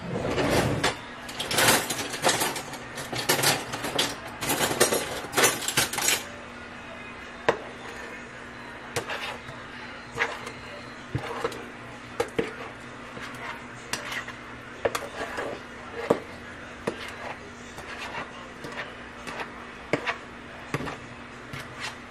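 A utensil scraping thick cake batter out of a mixing bowl into a baking pan: a dense run of scraping and clatter for the first six seconds or so, then sparser single scrapes and light knocks against the bowl.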